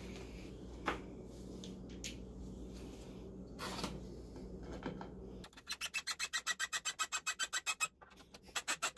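A hand screwdriver drives a screw into the particleboard side panel of a flat-pack cart. About halfway through it makes a fast, even run of clicks, about ten a second, for a couple of seconds, then a shorter run near the end. Before that there are a few light knocks as the panels are handled.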